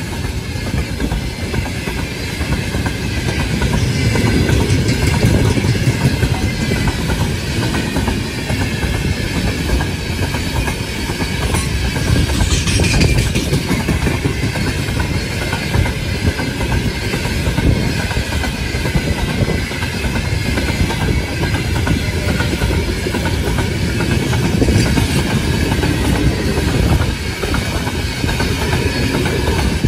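Long freight train of 90-plus wagons rolling past: a steady rumble with the rhythmic clickety-clack of wheels over rail joints, and a brief higher squeal about twelve seconds in.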